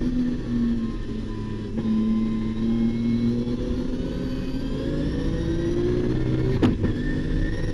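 Nissan R32 Skyline's RB26 twin-turbo straight-six heard from inside the cabin under racing acceleration, its revs climbing toward about 7,000 rpm. About seven seconds in there is a brief sharp noise and the pitch drops: an upshift.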